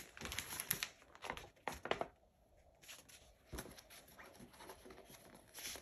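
Soft rustling and light taps of paper as a paperback picture book's pages are handled and turned. The sounds come in a cluster over the first two seconds and once more about three and a half seconds in.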